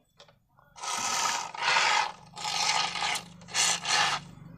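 AC cleaner aerosol can sprayed through a long extension straw into a car's dashboard air vent, in about five short hissing bursts after a quiet first second.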